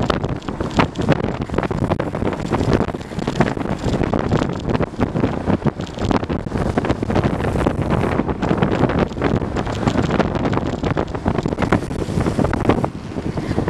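Heavy wind buffeting the microphone at downhill longboarding speed, over the rumble of longboard wheels rolling fast on asphalt. It eases briefly near the end.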